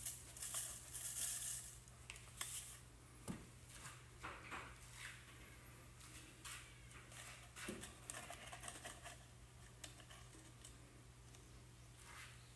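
Crumpled aluminium foil crinkling as it is pushed down into a jar of salted copper sulfate solution, followed by faint scattered ticks and crackles as the foil sits in the liquid and the reaction starts.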